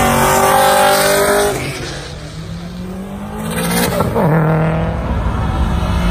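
Cars accelerating past one after another. The first engine note is loud and steady and fades about a second and a half in. A second engine then rises in pitch, drops sharply about four seconds in, and holds a steady note.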